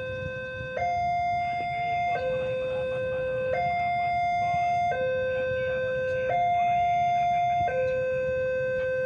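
Railway level crossing warning alarm sounding a two-tone hi-lo signal, switching between a higher and a lower tone about every second and a half, over a low steady rumble.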